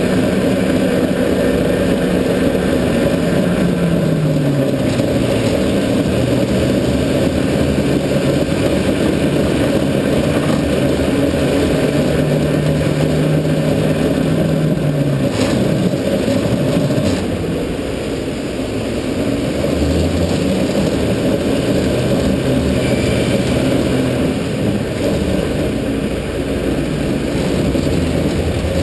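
Go-kart motor heard from on board while lapping, its pitch climbing as the kart speeds up and dropping as it slows for corners. It is briefly quieter about two-thirds of the way through.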